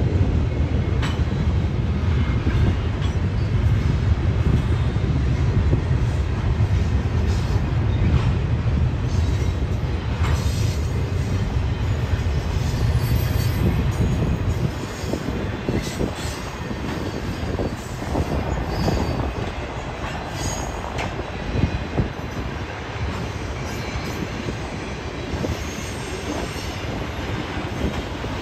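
Freight train rolling past on steel rails: a heavy low rumble for about the first half, then a lighter rumble of the passing cars, with wheels clicking over the rail and some wheel squeal.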